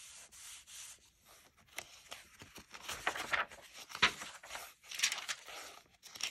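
Paper pages of a handmade junk journal being handled and turned by hand: dry rustling and crinkling, with several sharp flicks as pages flip over, the strongest about three, four and five seconds in.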